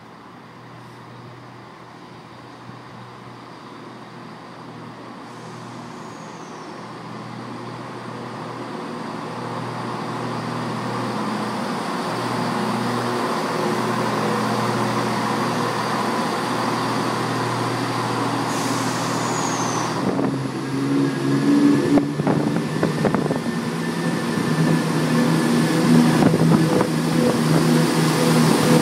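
Greater Anglia diesel multiple unit approaching and running in alongside the platform, its engine note growing steadily louder for over ten seconds. For the last third it is close by, with a fuller engine throb and repeated knocks from the wheels.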